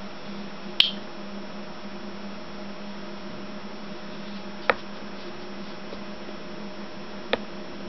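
Three sharp clicks of a soldering iron being handled: lifted from beside the solder spool, then its tip tapped down onto the leaded stained glass panel. The loudest click comes about a second in, one just before the five-second mark, and a smaller one near the end, over a steady low electrical hum.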